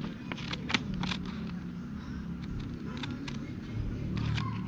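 Scissors snipping open a papaya seed packet: a series of short, sharp clicks and crinkles, the loudest about three-quarters of a second in, over a steady low background rumble.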